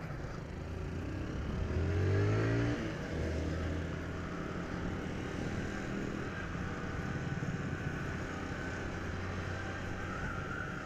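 Motorcycle engine heard from on board the moving bike: it revs up with rising pitch about two seconds in, then runs steadily at cruising speed.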